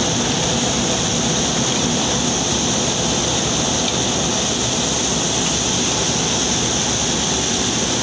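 Tractor-driven wheat thresher running steadily as wheat straw is hand-fed into its auger intake, threshing the last of the crop. The noise is loud and even, with a steady high whine over it.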